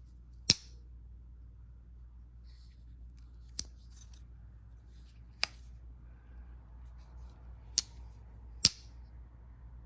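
Rough Rider pocket knife's blade snapping open and shut, five sharp metallic clicks spread irregularly over about eight seconds, the first and last the loudest.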